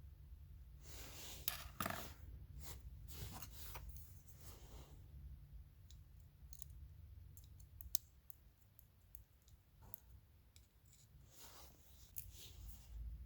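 Scattered light clicks and short scraping sounds of small hard objects being handled, over a low steady hum.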